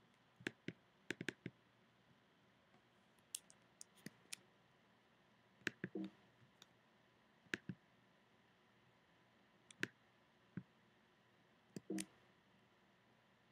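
Faint, scattered clicks from working a computer, about a dozen spread over near silence, some coming in quick pairs or threes.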